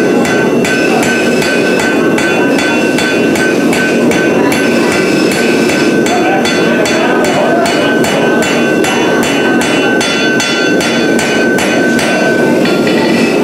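Blacksmith's hand hammer striking red-hot steel held in tongs on an anvil, about three blows a second, the anvil ringing after each blow as a knife blade is forged.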